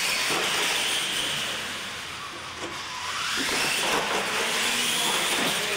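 Radio-controlled monster trucks racing: their motors set off with a sudden whine and hiss, ease back around two seconds in, then whine rising in pitch again as they drive on.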